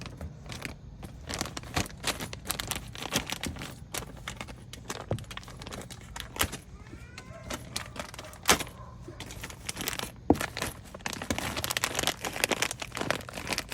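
Irregular clicks and metallic clinks of small metal brake-pad hardware being handled, over a steady low hum.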